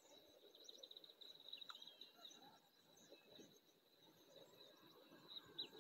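Near silence, with faint scattered bird chirps and a faint steady high insect-like tone in the background.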